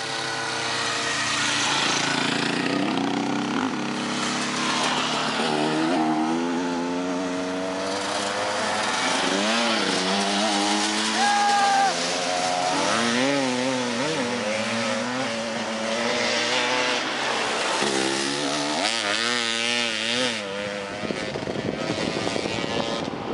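Enduro dirt bikes riding past one after another, their engines revving up and down as the riders work through the gears. The closest and loudest passes come around the middle and again near the end.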